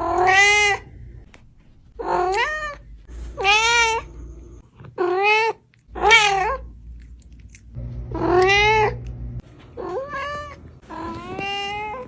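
Domestic cat meowing repeatedly, about eight separate meows, each under a second long and rising then falling in pitch.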